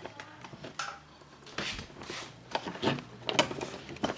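Handling noise of work on a curtain track and its pull cord: irregular light knocks, rubs and rustles, a few of them louder in the second half.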